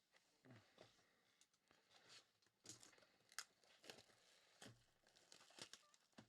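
Faint tearing and crinkling of trading card packaging being opened by hand: a run of short, irregular crackles and rustles.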